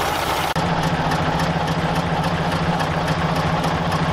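Scania 141's V8 diesel engine idling steadily, with a momentary break about half a second in.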